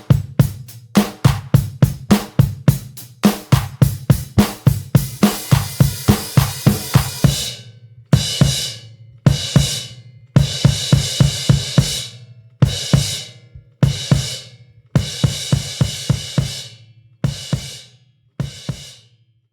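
Drum kit playing: a steady beat of snare and bass drum hits at about four a second, a fast fill with crashing cymbals midway, then slower single hits with cymbals ringing out.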